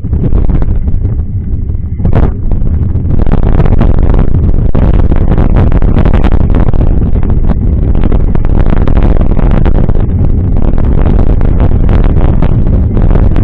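Heavy wind buffeting on a bike-mounted camera's microphone during a mountain-bike ride, with rattling and knocks from the bike on a rough trail. It gets louder about three seconds in and stays steady.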